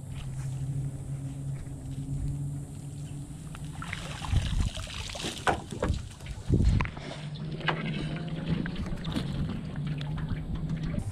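Cast net hauled out of lake water, splashing and dripping, then dropped onto wooden dock planks with two heavy thumps about four and a half and six and a half seconds in. A steady low engine hum runs underneath before and after.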